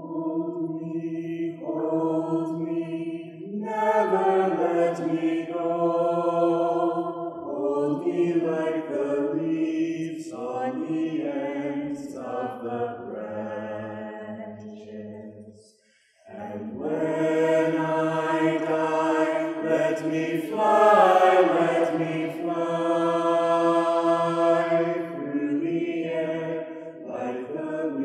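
Mixed choir of men and women singing unaccompanied in sustained, chant-like harmony. The singing breaks off for a moment a little past halfway, then the voices come back in.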